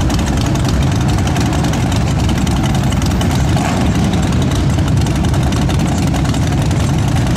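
Motorcycle engines running steadily and loudly.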